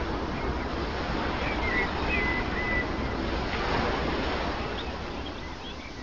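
Sea waves washing on the shore, a steady rush of surf, with a few faint high bird calls about two seconds in. The surf eases off toward the end.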